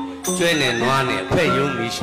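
Burmese traditional hsaing-style music: a melody whose pitch slides and wavers over steady held tones.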